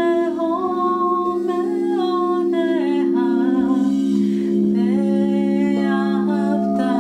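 Quartz crystal singing bowls sounding in several steady, held low tones. Over them a woman sings wordlessly, her voice gliding between sustained notes.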